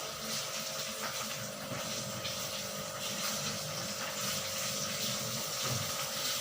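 Steady hiss of food frying in hot oil in a pan, with a faint steady hum underneath.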